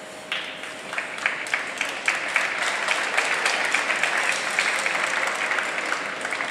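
Audience applauding, starting suddenly just after the start, swelling, then dying away near the end.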